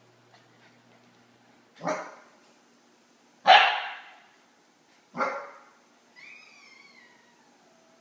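Eight-week-old Akita puppy barking: three sharp barks about a second and a half apart, the middle one loudest, then a long whine that falls in pitch near the end.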